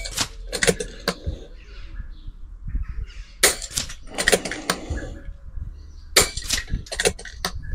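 Pre-charged pneumatic air rifle being fired again and again: sharp cracks in clusters about every two to three seconds, mixed with clicks and clacks of the action being cycled between shots.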